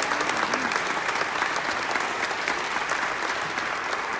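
Audience applause: many people clapping steadily in a dense patter.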